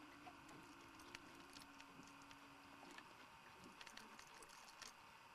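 Near silence: faint scattered light clicks of pliers working a lure's hook loose from a northern pike's jaw, under a low steady hum that stops about three seconds in.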